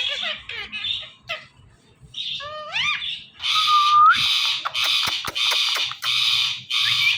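Indian ringneck parakeet calling: a few short chirps and rising whistled calls, then a run of loud, harsh squawks from about three and a half seconds in.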